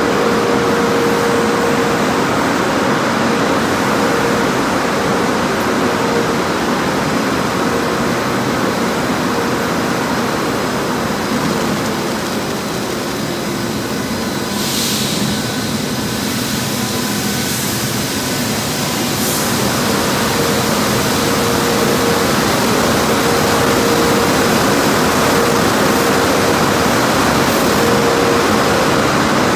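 Tommy's Express automatic tunnel car wash running: big rotating brushes scrubbing a car and water spraying, over a steady machine hum. It eases off a little about halfway through, with a short hiss.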